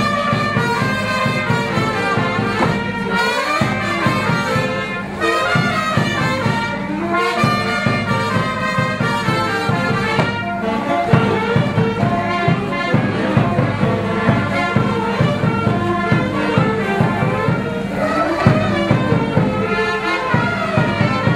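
Brass band dance music with trumpets and trombones playing a lively tune over a steady beat.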